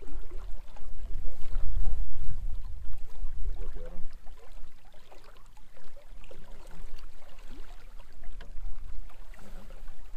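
Uneven low rumble of wind buffeting the microphone over river water moving against the boat, loudest in the first few seconds.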